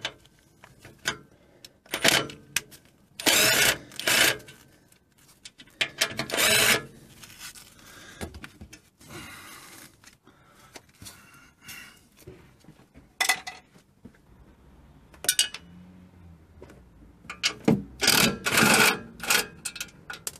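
Socket ratchet clicking in repeated short bursts as the four nuts holding the front shock turret on are undone, with quieter gaps between the bursts.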